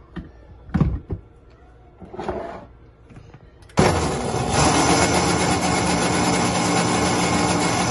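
A few knocks and handling sounds, then a KitchenAid countertop blender switched on a little under halfway through, its motor running steadily as it blends eggs, butter and sugar into crepe batter.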